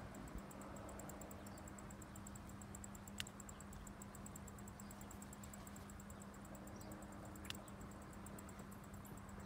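Faint background with a steady low hum and a fine high ticking, broken by two sharp clicks about four seconds apart.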